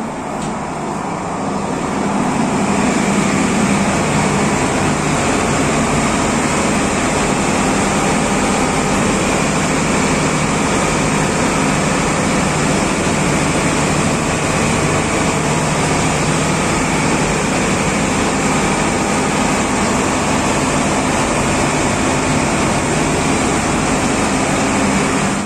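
Loud, steady drone of a tug's engine room with its diesel machinery running: a deep engine hum under a constant hiss of air and machinery noise. It grows louder over the first two or three seconds, then holds steady.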